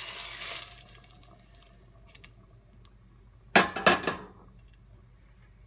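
Boiling water poured into a stainless steel pot of cooked vegetables, a rushing hiss that ends about half a second in. About three and a half seconds in, a quick run of sharp metal clinks and knocks of pots on the stove.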